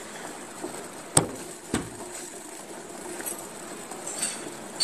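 Coconut water with dissolved agar agar boiling in a steel pan, a steady bubbling. A steel spoon clinks sharply against the pan just over a second in, then knocks once more about half a second later.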